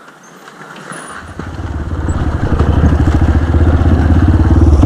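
Dirt-bike engine running, growing steadily louder from about a second in until it is close and loud near the end.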